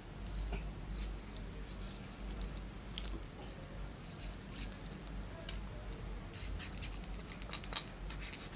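A knife cutting through raw chicken meat and skin, with faint wet squishing and scattered small clicks, over a low steady hum.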